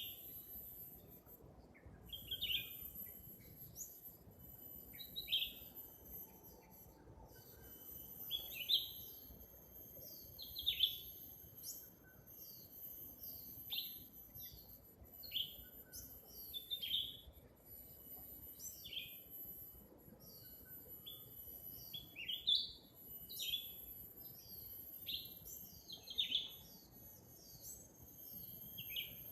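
Leafbird calling: short, sharp, falling chirps repeated about once a second, some in quick pairs. A steady high insect drone runs underneath.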